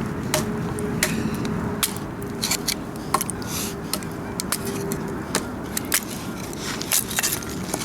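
A Ka-Bar Big Brother knife being batoned through a piece of firewood: about a dozen sharp, irregularly spaced knocks of a wooden baton on the blade's spine as the wood splits, over a faint steady hum.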